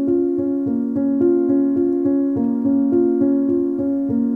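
Background music: a keyboard or electric piano playing a steady run of repeated notes.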